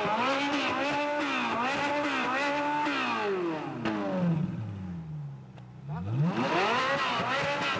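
Ferrari 458's naturally aspirated V8 revved hard while stationary through a triple-tip aftermarket exhaust: held high for about three seconds, dropping back toward idle, then revved up again about six seconds in.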